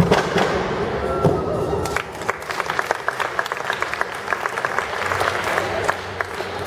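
Audience applauding, with dense clapping from about two seconds in.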